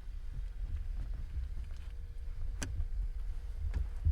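Low, uneven rumble of wind on the microphone aboard a fishing boat, with a faint steady hum and two sharp clicks, one about two and a half seconds in and one near the end.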